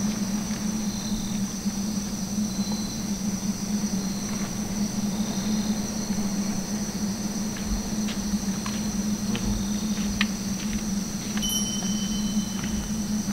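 Night insects, crickets among them, chirring steadily over a low steady hum. A few light clicks and knocks sound in the second half.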